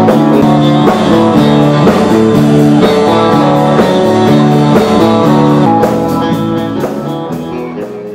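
Instrumental rautalanka-style guitar band music: a guitar melody over bass and drums, fading out over the last couple of seconds.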